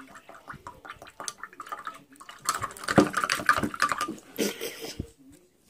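A pencil stirring a drink in a container, ticking against the sides with the liquid sloshing. A short hiss comes about four and a half seconds in.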